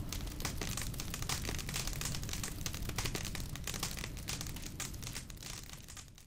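Fire crackling: a dense, irregular run of pops and snaps over a low rumble, fading away near the end.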